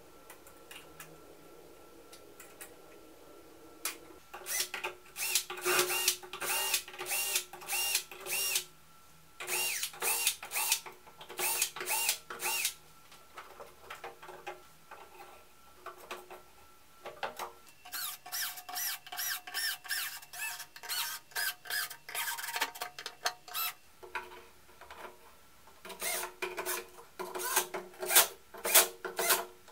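Faint handling of parts at first. From about four seconds in, a cordless drill/driver runs in rapid short bursts, stopping and starting again and again as it drives small screws into 3D-printed plastic blocks.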